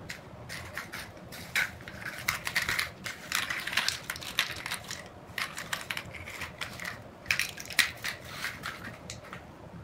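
Paper party horn with a green foil fringe being bitten and batted by a kitten: dense, irregular crinkling and crackling of foil and paper.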